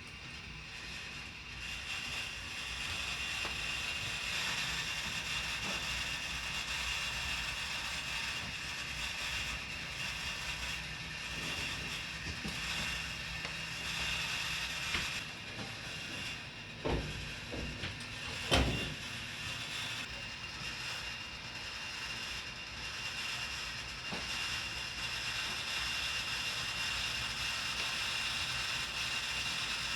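A chicken roasting rotisserie's spits and drive turning steadily with a continuous mechanical whirring rattle. A few sharp knocks come about two-thirds of the way through.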